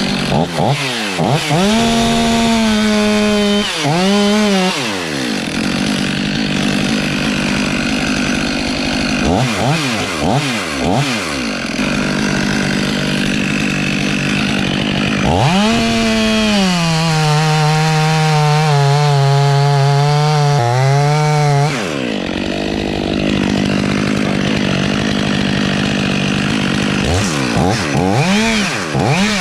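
Stihl chainsaw cutting the face notch into an oak trunk. It revs up, holds a steady lower pitch under load through long cuts, and drops back between them.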